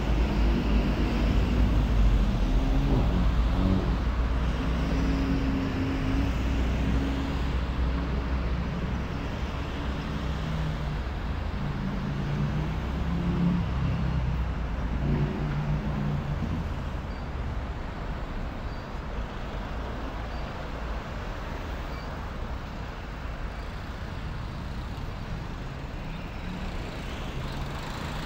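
City street traffic passing on a multi-lane road. A heavy vehicle's engine drones loudest in the first half, then fades, leaving a quieter steady traffic rumble.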